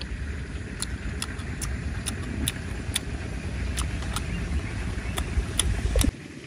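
Crunching of crispy deep-fried chicken being chewed close to the microphone: sharp crisp crunches, about two or three a second, over a steady low rumble.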